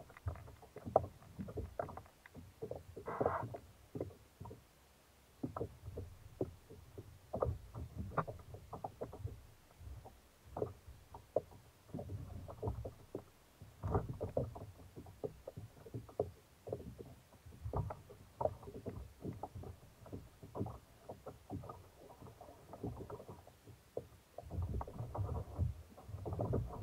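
Gear being handled and stowed on a sit-on-top fishing kayak: irregular small knocks, clunks and rattles against the plastic hull and fittings, with bursts of low water sloshing around it.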